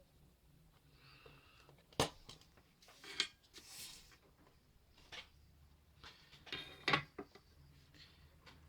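Small hand tools and parts being handled at a circuit-board repair: a few sharp clicks and taps, the loudest about two seconds in and near the end, with a short scrape just before the four-second mark.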